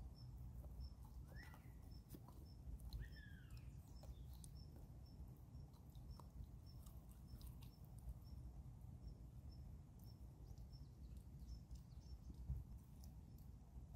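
Near silence: faint outdoor background rumble with a few faint clicks, and two short bird chirps about one and a half and three seconds in.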